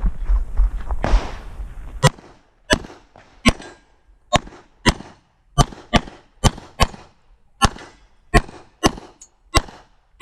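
A handgun fires a string of about thirteen shots in an IPSC practical-shooting stage, unevenly spaced about half a second to a second apart. The shots start after about two seconds of rumbling noise.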